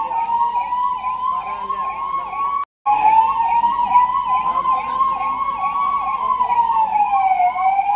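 Emergency-vehicle sirens: a slow wail that rises and falls over several seconds, overlapped by a faster warbling siren cycling about three times a second. The sound cuts out for a moment about a third of the way in.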